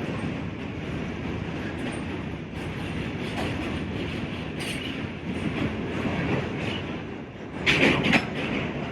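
New York subway train running on its rails, a steady rumble and rattle, with a louder, sharper clatter near the end.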